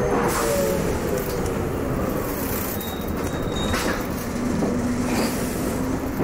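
MCW Metrobus with a Cummins diesel engine, heard from the upper deck while under way: a steady engine and drivetrain drone over road noise, with a few knocks and rattles. A whine falls in pitch over the first second or two, and a steady lower whine comes in about four seconds in.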